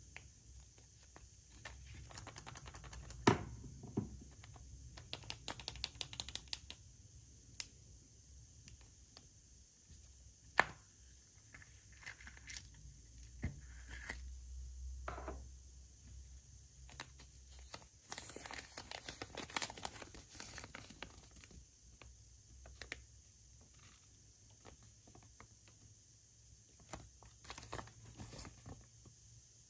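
Wrapping being torn and crinkled by hand, with scattered sharp clicks and knocks from small objects being handled. The rustling comes in bursts, one about five seconds in and a longer one about eighteen seconds in.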